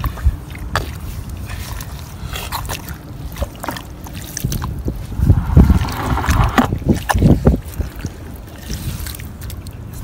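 A hand digging and scooping wet mud and seawater out of a hole on a tidal mudflat: irregular squelching and sloshing, heaviest about five to seven and a half seconds in.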